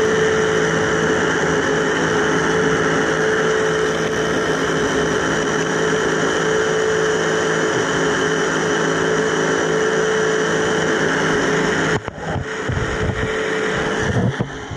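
RC burnout car running flat out at a constant pitch, a steady high whine over rushing noise. About twelve seconds in the whine cuts off and gives way to rougher, uneven noise.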